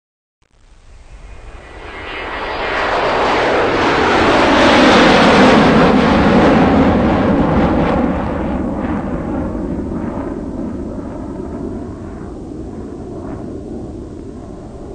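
Loud engine noise that starts from silence, swells over a few seconds to a peak near the middle, then slowly fades, with a few faint knocks toward the end.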